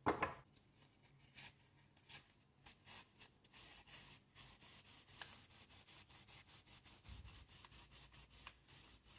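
A sharp knock right at the start, then kitchen roll soaked in white spirit, wrapped on a socket extension, scrubbing inside the steel cylinder of a Webley Junior air pistol to clear old grease. The rubbing strokes are scattered at first, then come quick and regular, about three a second, from a few seconds in.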